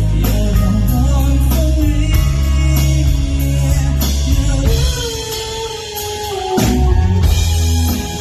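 Live band playing an R&B ballad with vocals, electric guitar, bass and drum kit. About five seconds in, the bass and drums drop out for a moment under a held, sliding note, then the full band comes back in.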